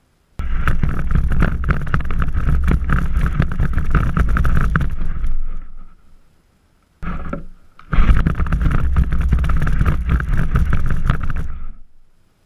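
A small sled with a camera on it being dragged over dry grass: a rough scraping and rubbing noise in two long stretches with a short burst between them, stopping dead whenever the sled stops.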